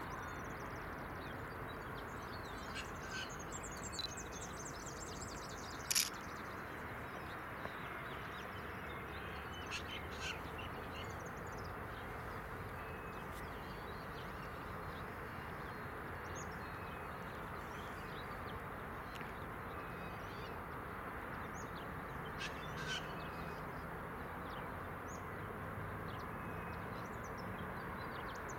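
Birds calling now and then, including crow-like caws, over a steady low rumble, with a sharp click about six seconds in.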